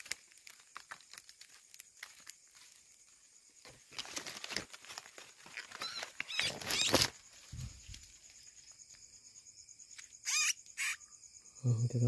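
Leaves and twigs rustling and crackling as a small roosting bird is grabbed by hand, with a loud burst of thrashing leaves and wingbeats in the middle and two short high squeaks near the end. Crickets chirp steadily behind in the second half.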